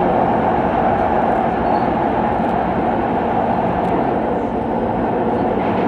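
Cabin noise of an SMRT C151 Kawasaki metro train running through an underground tunnel: a steady, loud rumble of wheels on rail and running gear, with a low hum throughout.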